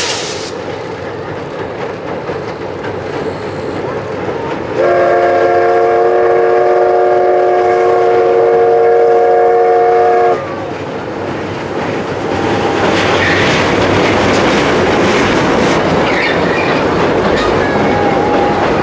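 C11 227 steam tank locomotive sounding its steam whistle in one long steady blast of about five seconds, starting about five seconds in. From about twelve seconds in, the locomotive and its coaches rumble and clatter louder across the steel girder bridge.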